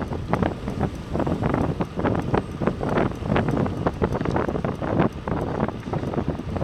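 Wind buffeting a moving camera's microphone, a rough, gusty rumble with irregular flutter throughout, over faint road and traffic noise.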